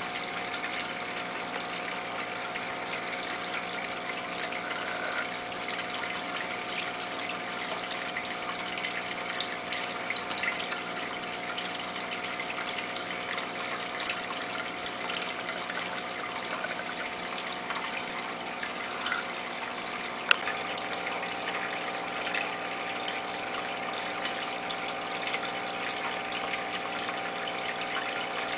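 Aquarium filter pump running steadily, with the continuous rush of moving water and a steady hum under it; one sharp click about two-thirds of the way through.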